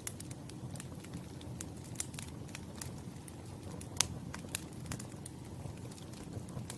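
Wood campfire burning: irregular sharp crackles and pops over a low, steady rush of flame, with the loudest pop about four seconds in.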